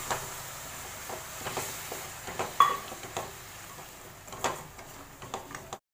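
Wooden spatula stirring grated coconut and hot palm-jaggery syrup in a pan, with scattered scrapes and knocks against the pan over a faint sizzle.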